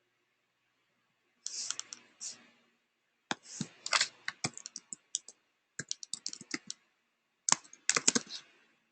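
Typing on a computer keyboard in quick bursts of keystrokes with short pauses between them, starting about a second and a half in.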